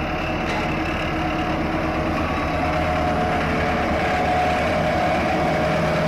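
Heavy diesel engines running steadily as a large mining excavator loads a dump truck.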